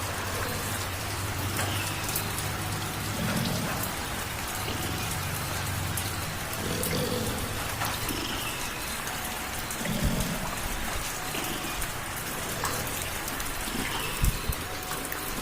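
Light rain falling steadily, with a cat's low, steady purr underneath, and a couple of short dull knocks near the end.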